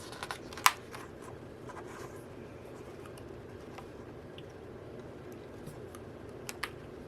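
Paper and card handling while going through an album's photo booklets and cards: light rustling with small clicks, a single sharp tap just under a second in and two quick taps near the end.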